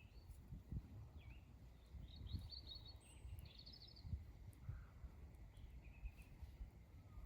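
Faint songbirds calling: scattered short chirps, with two quick trills a couple of seconds in and again about a second later. Under them runs a low rumble of wind on the microphone.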